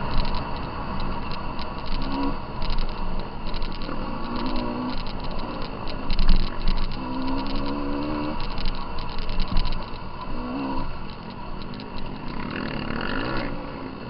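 Off-road motorcycle engine revving up and easing off in bursts of throttle over a steady rushing noise, with frequent rattling knocks from riding a rough dirt trail.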